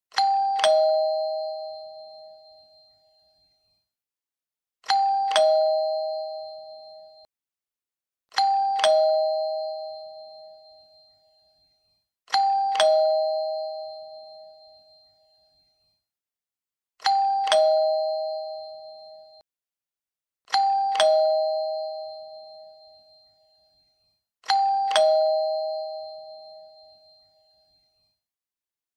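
Two-note "ding-dong" doorbell chime rung seven times at intervals of about three and a half to four and a half seconds. Each ring starts with a click, then a higher note and a lower note about half a second later, both ringing out and fading. A few rings are cut off short before they fade away.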